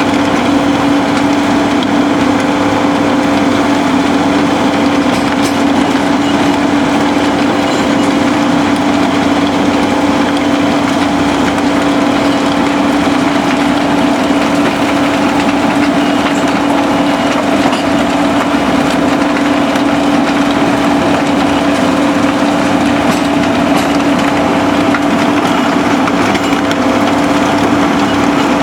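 SBM mobile impact crusher and heavy diesel machinery running steadily while crushing concrete: a constant engine drone with a steady hum, over a dense gritty rattle of rubble.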